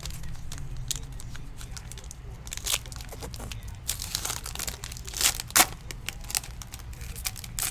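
Foil baseball-card pack wrapper being torn open and crinkled by hand, in a string of sharp crackles with louder rips about three, four to five and a half, and seven seconds in.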